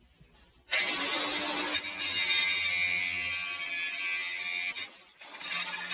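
Cordless DeWalt 18-volt angle grinder grinding the edge of a steel lawn mower blade to sharpen it. The loud, hissing grind with the motor's whine starts about a second in, drops out briefly near the end and picks up again a little softer.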